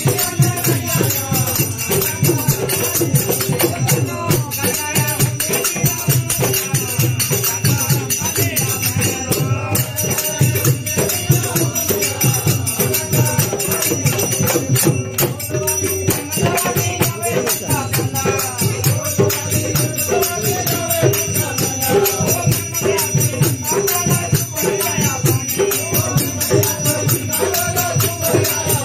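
A group of men sings a devotional Hindu bhajan together, a lead voice with the group joining in, over tabla and dholak drumming in a steady rhythm with hand clapping.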